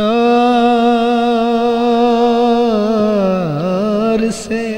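A man singing one long held note of a devotional kalam without words, steady with a slight waver. The pitch dips and comes back up about three and a half seconds in, and the note breaks off briefly near the end.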